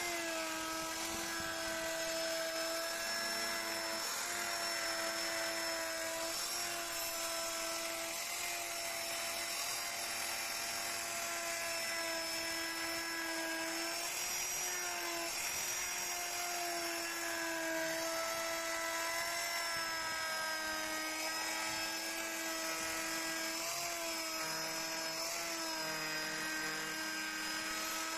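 High-speed electric carving tool running steadily while cutting into wood, a continuous high whine whose pitch sags briefly now and then as the bit bites.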